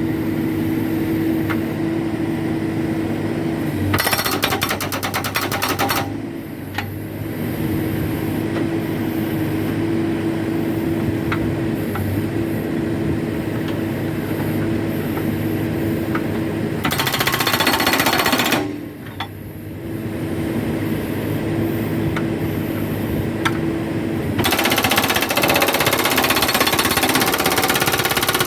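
Hydraulic rock breaker on a backhoe hammering in three bursts: a short one a few seconds in, another past halfway, and a longer run near the end. Between the bursts the backhoe's diesel engine runs steadily.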